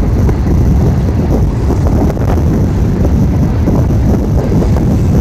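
Union Pacific double-stack container train rolling past, a steady low rumble, with wind buffeting the microphone.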